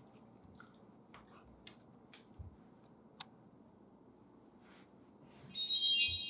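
Scattered faint clicks and ticks, then about five and a half seconds in a sudden, loud, bright high-pitched ringing tone that fades away.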